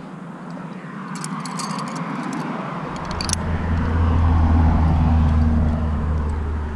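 A road vehicle passing close by, growing louder and then fading, with a deep engine hum coming in about three seconds in. Brief high clinking, like metal gear jingling, about one to three seconds in.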